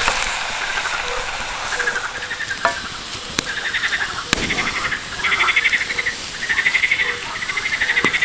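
Crickets chirping in repeated pulsed trills that grow stronger about halfway through, with a few sharp clicks in between.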